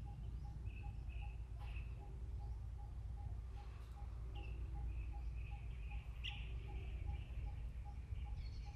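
Birds chirping now and then over a faint note that repeats evenly about three to four times a second, with a steady low rumble underneath.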